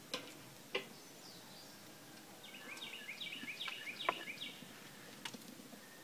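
Metal grill tongs clicking against the kettle grill's cooking grate a few times, sharply, with the strongest click about four seconds in. A songbird sings a quick run of short repeated chirps in the middle.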